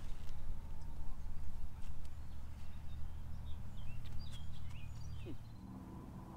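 Wind rumbling on the microphone, with a few bird chirps in the middle; the rumble drops away near the end.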